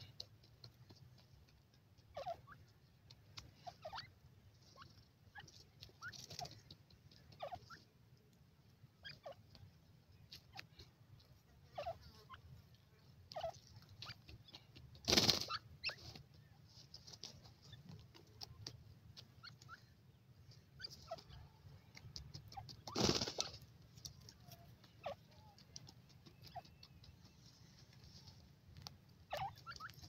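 Young grey francolins scratching and dust-bathing in dry, loose soil, with faint scattered peeping calls and small scuffs and patters of flicked dirt. Twice a louder short rustling thump stands out.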